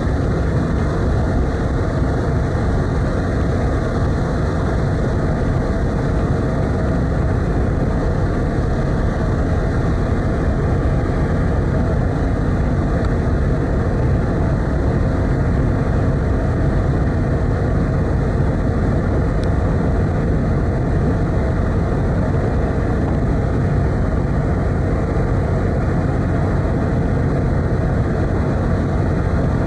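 Steady low rumble of the car ferry Kuniga's engines running, heard on board.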